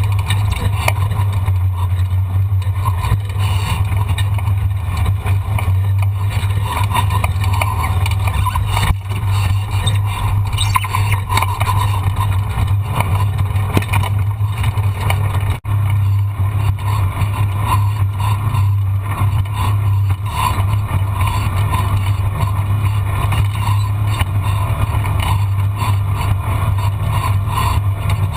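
A vehicle engine running steadily at a constant pace with a continuous low hum, dipping briefly about halfway through.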